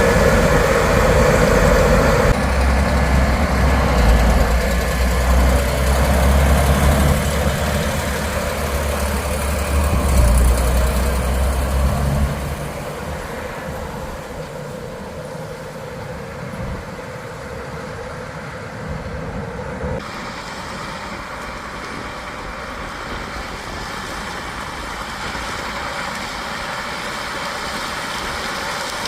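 Heavy engine of corn-harvest machinery running steadily with a deep rumble, dropping noticeably quieter about twelve seconds in and staying at a lower, even running sound.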